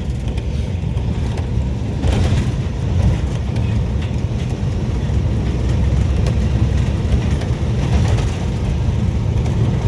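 GE U18C diesel-electric locomotive running under load, heard from the cab as a steady low engine drone. There are a few brief clicks and knocks about 2, 3 and 8 seconds in.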